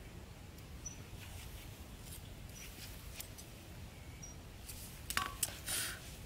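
Scissors snipping a nylon cord, a few sharp clicks and a short cutting snip near the end, after light handling of the cord.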